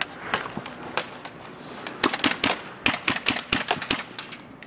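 Airsoft guns firing across the field: scattered sharp clicks of single shots and short rapid bursts.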